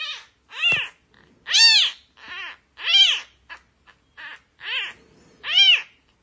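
A cat meowing over and over, about eight meows in a row, each rising then falling in pitch.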